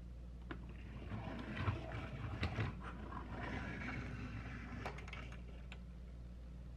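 Plastic toy semi truck and trailer (Disney Store Mack transporter) pushed by hand across a tabletop, its plastic wheels rolling faintly, with a few light clicks. It fades out about five seconds in.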